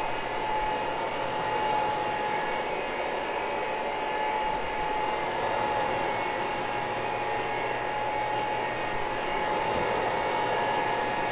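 Electric motor of carpet-cleaning equipment running steadily, a constant machine noise with a steady high whine over it.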